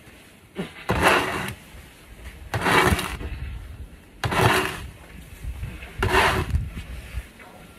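Snow shovel scraping along a paved walkway as it pushes snow, four strokes about every one and a half to two seconds.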